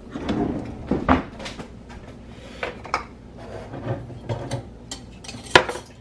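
Metal kitchen utensils clinking and rattling as someone rummages through an open utensil drawer, with scattered knocks and one sharp knock near the end.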